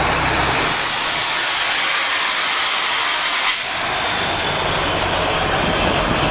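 A loud, steady rushing hiss of vehicle noise, with a low rumble underneath that drops away in the middle and returns after the sound shifts abruptly about three and a half seconds in.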